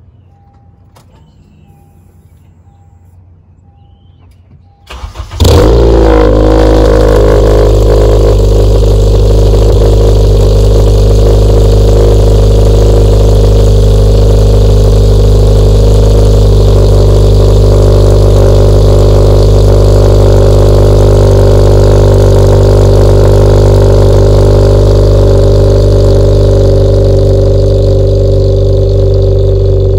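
Cold start of a 9th-generation Honda Civic Si's 2.4-litre K24 four-cylinder through an aftermarket downpipe. A short crank about five seconds in, then it catches with a brief flare of revs and settles into a loud, steady high idle that eases slightly near the end.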